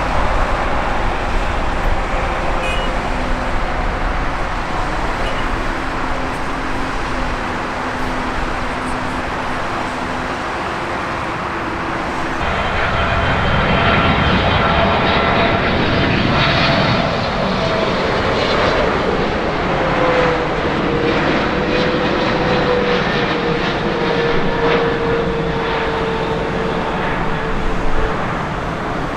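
For the first twelve seconds, a steady rumble with low hums. Then, after a sudden change, the louder sound of a Boeing 777 freighter's jet engines, with a whining tone that dips and then holds steady.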